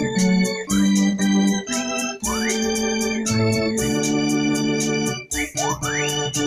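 Electronic arranger keyboard played on an organ voice: held hymn chords with quick upward slides into some of them, over a steady ticking beat.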